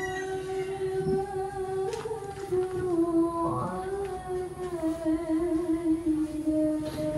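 A woman singing a slow melody in long held notes that step gently up and down, with a faint click about two seconds in.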